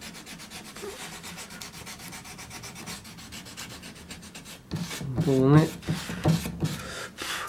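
Hand sanding: a small piece of 150-grit sandpaper, held in the fingertips, rubbed in quick short strokes over carved wood. A short vocal sound from the carver about five seconds in is the loudest moment.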